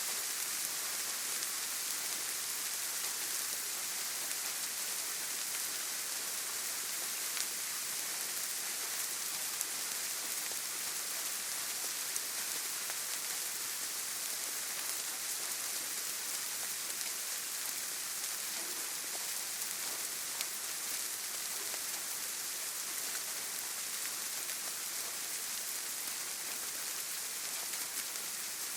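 Steady rain falling on a surface, an even hiss with the odd sharper drop tick.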